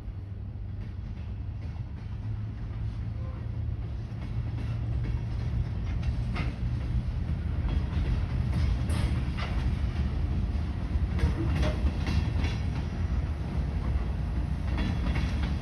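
Freight train cars rolling past: a steady low rumble with scattered clicks and knocks from the wheels over the rails, growing louder and busier about halfway through.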